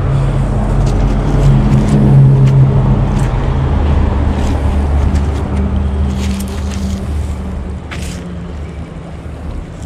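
A passing motor vehicle's engine drone. The low hum grows louder, drops in pitch about three seconds in as it goes past, then fades away. A few light clicks come near the end.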